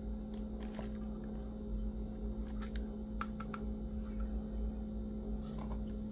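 Scattered light clicks and taps of a clear plastic waterproof camera housing being handled and turned over in the hands, over a steady low hum.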